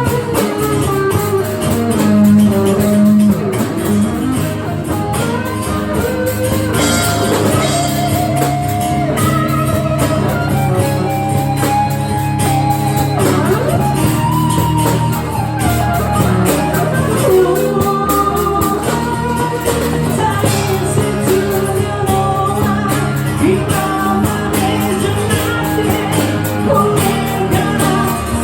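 A band playing a rock song: guitar with a singing voice over it.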